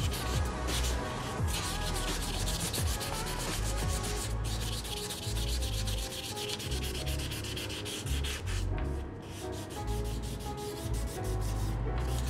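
Sandpaper rubbed by hand over the painted body panel of a Honda C70 motorcycle, quick back-and-forth sanding strokes that run on steadily.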